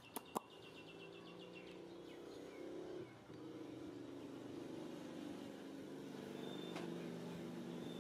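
Steady low hum of a vehicle engine in the background, swelling slightly partway through. Two sharp clicks come right at the start, followed by a quick run of high bird chirps over the first two seconds and a few faint chirps later.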